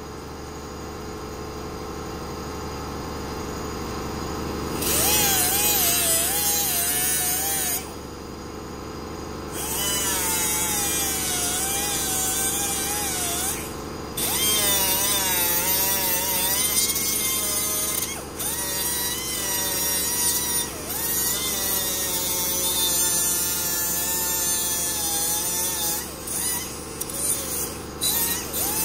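Pneumatic die grinder with a thin cutoff wheel grinding the edge of a small piece of sheet metal, its whine wavering in pitch as the wheel bites. It eases off briefly a few times and runs in short stop-start bursts near the end.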